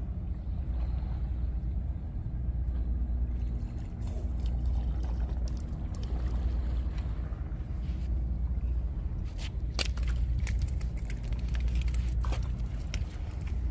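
Steady low rumble with a faint, even engine-like hum, and a scatter of sharp clicks and taps from about four seconds in.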